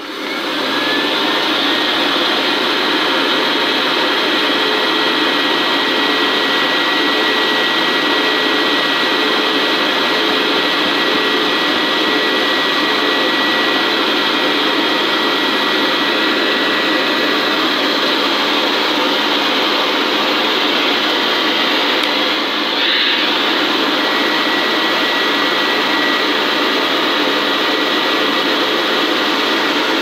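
Hoover Senior upright vacuum cleaner switched on and running through its tool hose, the nozzle sucking dust off a cloth vacuum bag. It comes up to speed within the first second, then runs steadily as a rush of air with a high whine, dipping briefly about three-quarters of the way through.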